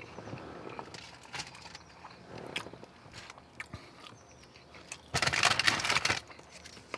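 Close-up chewing with small wet clicks, then about five seconds in a loud, crackly bite into a crispy deep-fried onion ring, lasting about a second.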